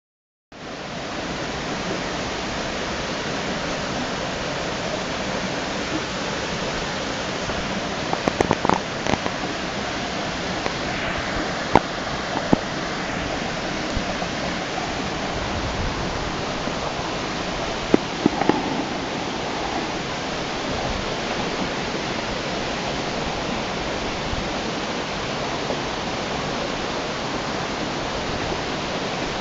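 Waterfall rushing steadily, with a few sharp clicks or knocks about a third of the way in and again past the middle.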